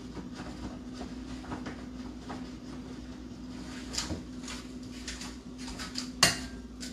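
Steady low hum under the small clicks and knocks of someone moving about a kitchen, with a sharp knock, like a cupboard or door shutting, just after six seconds.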